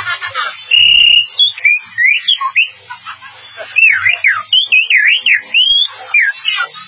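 A boy whistling through pursed lips in imitation of a bird's song: a steady high whistle about a second in, then a quick run of rising and falling whistled notes.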